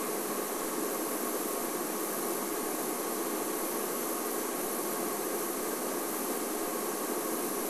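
Steady, even hiss with no separate events.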